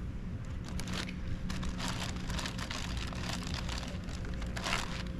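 Crinkling and rustling of a plastic Ziploc food bag and wrappers being handled, in irregular clusters of crackles over a steady low background rumble.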